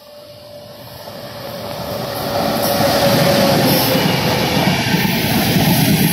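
A WAP-7 electric locomotive and its express passenger coaches passing at speed. It grows steadily louder over the first three seconds as it approaches, with a thin whine that drops slightly in pitch as it goes by, then the steady, loud running noise of the coaches' wheels on the rails.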